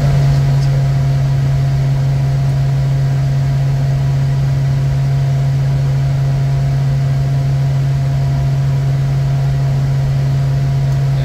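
Steady low drone inside a Bombardier Challenger 350 business jet with its engines running, a constant low hum with a fainter higher whine above it and no change in pitch.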